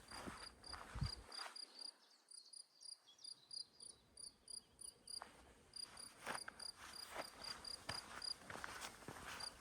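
An insect chirps steadily in short, high-pitched pulses, about four a second, with a brief pause about five seconds in. Soft footsteps and a single low thump about a second in sound beneath it.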